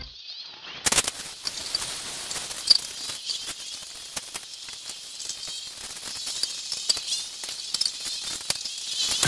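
Scattered light clicks and knocks of steel rack tubes and plastic corner connectors being handled while a cube storage rack is put together. The sounds begin about a second in.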